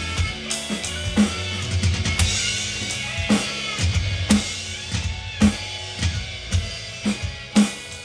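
Live drum kit playing a steady beat along with music: kick drum, a crisp snare hit about once a second and ringing cymbals, over a sustained low bass line.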